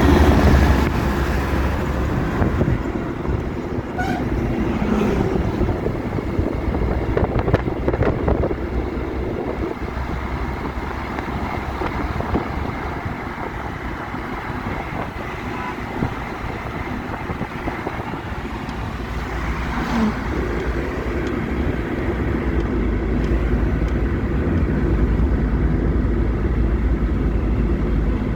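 A car driving along a road, its engine and tyres making a steady low rumble, with a few brief knocks.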